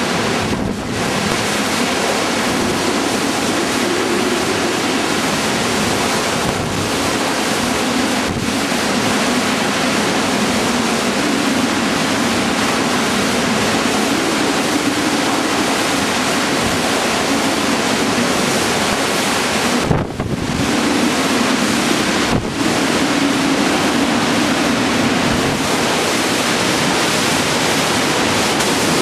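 Hurricane-force wind blowing through trees and buffeting the microphone: a loud, steady rush that dips briefly three times.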